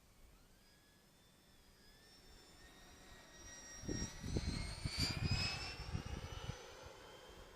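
Electric ducted fan of a large RC model jet, a 145 mm fan unit, whining as the jet flies past. The whine rises in pitch and grows louder to a peak about five seconds in, then drops slightly in pitch and fades. Gusty wind rumble on the microphone sits under the loudest part.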